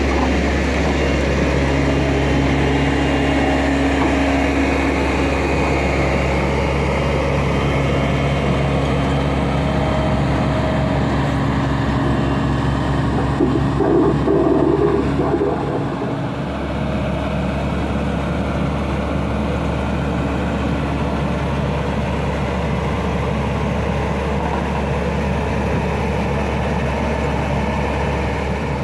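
Diesel engine of heavy earthmoving equipment running steadily, with a brief higher-pitched sound about halfway through and a slight drop in level just after.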